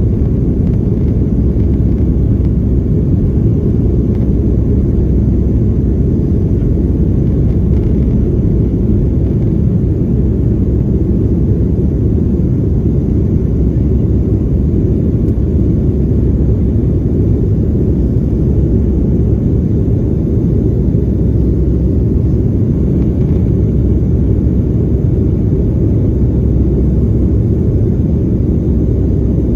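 Cabin noise inside a Boeing 757-200 climbing out after takeoff: a loud, steady low rumble of the jet engines and rushing air, unchanging throughout.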